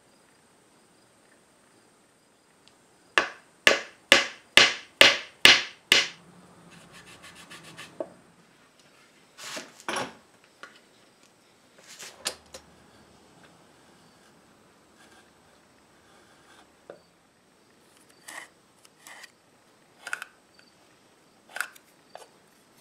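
Hand tool cutting wood, likely a saw trimming a glued-in dowel flush: a run of about seven quick strokes, then finer scraping and a few scattered strokes and taps.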